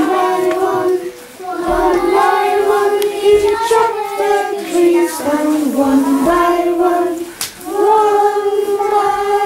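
A group of children singing a song together in unison, in sustained phrases with two brief breaks between them.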